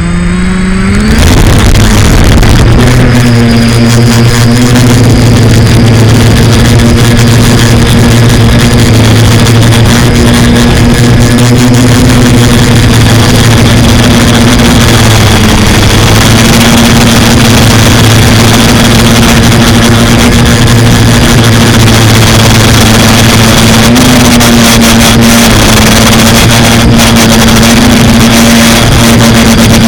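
FPV quadcopter's motors and propellers spinning up, rising in pitch over the first second, then running as a loud, steady buzzing drone with small dips and rises in pitch.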